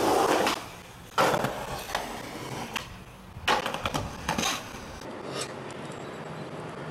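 Skateboard rolling on concrete, then several sharp board impacts over the next few seconds. After that only a faint steady background hum remains.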